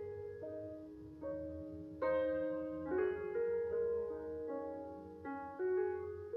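Soft background piano music: single notes and chords struck roughly once a second and left to ring and fade.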